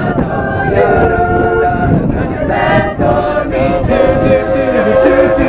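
Mixed choir of men's and women's voices singing a cappella in sustained chords, with wind rumbling on the microphone.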